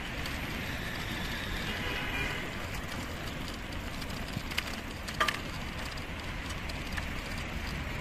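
Outdoor park ambience: a steady low hum of distant road traffic, with a faint voice about a second in and a couple of sharp clicks about five seconds in.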